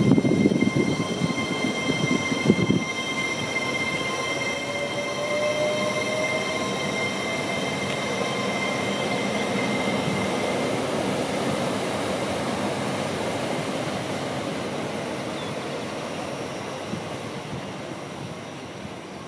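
Hitachi Class 803 all-electric multiple unit, 803 001, passing close by: wheels rumbling on the rails with a couple of heavy knocks in the first three seconds, steady high whistling tones and a rising whine, fading as the train draws away near the end.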